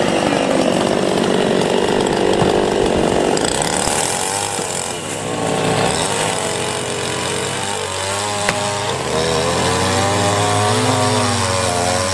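Chainsaw engine running, its pitch rising and falling as it revs up and down; a single sharp knock about eight seconds in.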